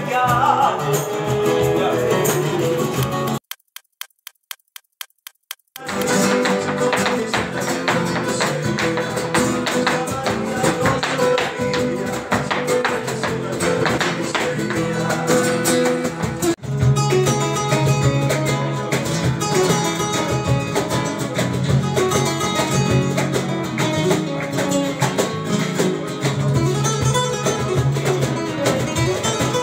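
Instrumental music with plucked guitar. About three seconds in it drops out for a couple of seconds, leaving only faint quick ticks, then resumes. It breaks off again for an instant near the middle.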